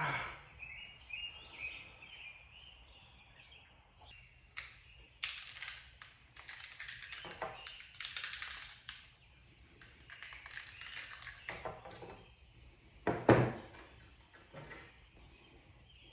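Hand-carving and shaving at the opening of a vending-machine coil's housing: irregular scraping strokes, with a few clicks and one loud knock about 13 seconds in.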